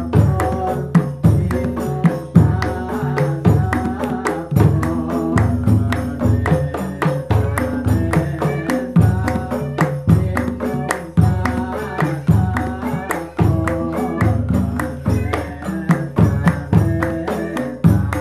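Dolalak music: frame drums struck in a quick, jingling pattern over a deep drum beat about once a second, with a melody running above.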